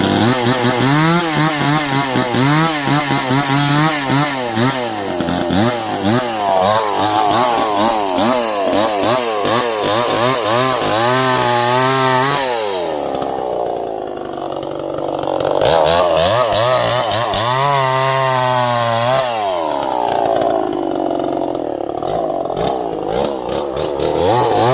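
Two-stroke chainsaw running at high revs while cutting sengon timber, its pitch wavering under load. About twelve seconds in the engine drops back, then revs up again a few seconds later before easing off once more.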